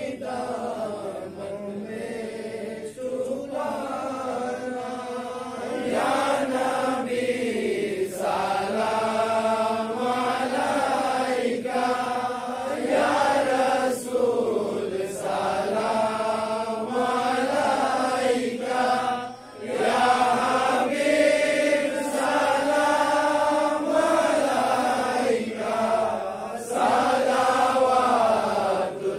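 Men's voices chanting a devotional Islamic chant in long, drawn-out melodic phrases, with a short pause about two-thirds of the way through.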